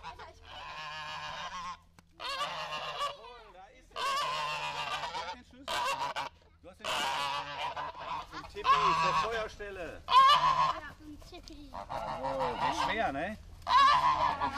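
Domestic geese honking over and over, a string of calls each about a second long with short gaps between them.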